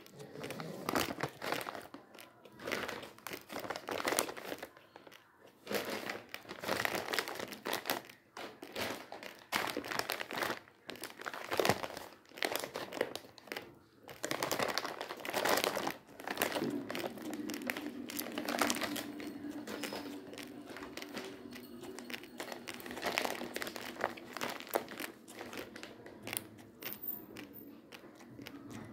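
Plastic rice packets crinkling and rustling as they are handled close to the microphone, in irregular bursts.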